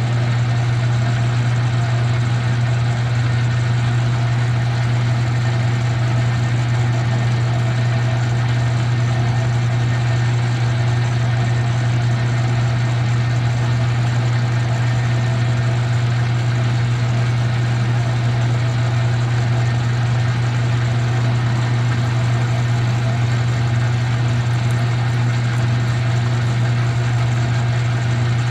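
Metal lathe running steadily while an 8.5 mm drill bores a hole into the workpiece: a constant hum with no change in level.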